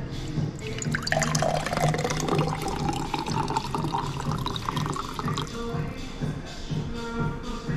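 Water pouring from the spigot of a glass drink dispenser into a drinking glass, its pitch rising as the glass fills, starting about a second in and stopping after about five seconds. Background music plays throughout.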